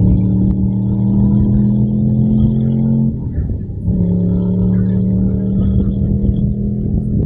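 Land-speed racing car engine under full throttle, its pitch climbing slowly, with a brief break and a drop in pitch about three seconds in, typical of an upshift, before it climbs again.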